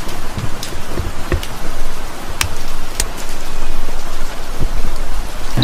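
Rain on the car's roof, heard from inside the cabin: a steady hiss with scattered sharp taps.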